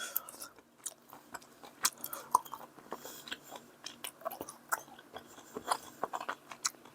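A person chewing crunchy food, with irregular sharp crunches and clicks of bites.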